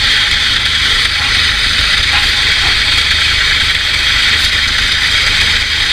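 Kubota tractor's diesel engine running steadily under load as the tractor tries to pull out of deep mud; the tractor is stuck and not moving at all.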